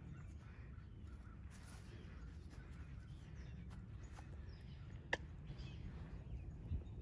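Faint outdoor ambience: a steady low rumble with faint bird calls, broken by one sharp click about five seconds in and a soft thump near the end.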